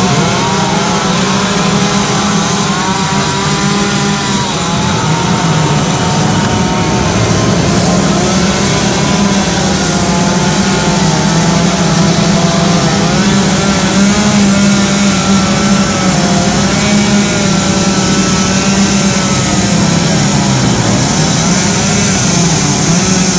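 Two-stroke chainsaw running continuously and loud while carving wood, its engine speed rising and falling under load as it cuts.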